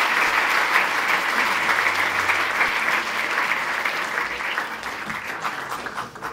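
Audience applauding, with many hands clapping at once. The clapping thins out and dies away over the last couple of seconds.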